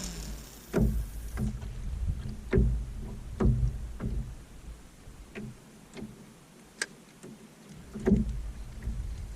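Wooden or composite canoe being paddled: irregular hollow knocks of the paddle against the hull, about one a second, with some water noise.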